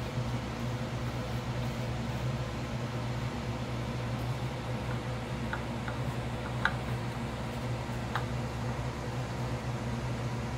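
Steady low machine hum, like a fan, with a few light clicks near the middle; the sharpest comes about two-thirds of the way through.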